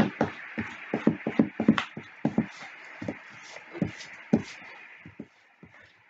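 White eraser scrubbing back and forth over drawing paper on a wooden table, rubbing out leftover pencil marks: quick irregular strokes, several a second, easing off near the end.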